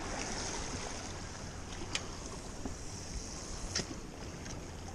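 Ocean water washing against jetty rocks as a steady hiss, with wind rumbling on the microphone. Two sharp clicks come about two seconds and nearly four seconds in.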